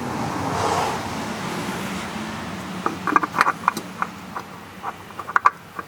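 A vehicle passing by, its noise swelling and fading over the first few seconds, followed by a scatter of light clicks and taps.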